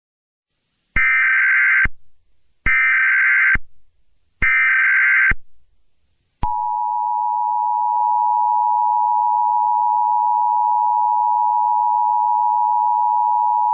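Emergency Alert System tones: three bursts of the SAME digital header, each about a second long, then the steady two-tone attention signal from about six seconds in.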